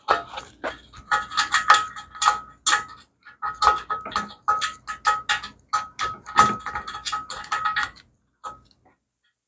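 Repeated metal-on-metal taps and clinks from a tool working at the drilled-out steering lock in the motorcycle's steering head, each with a short ringing note, two to four a second with a couple of brief pauses, stopping about eight seconds in.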